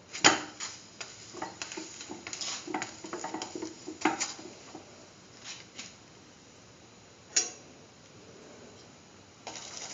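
Metal utensil clinking and scraping against a pan as a tortilla is worked in it. There is a sharp clink just after the start, scattered lighter scrapes and taps over the next few seconds, and another sharp clink about seven seconds in.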